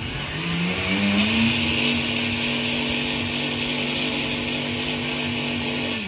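Countertop blender motor spinning up over about a second and a half, then running steadily at high speed as it blends a full jug of liquid soup, winding down with a falling pitch right at the end.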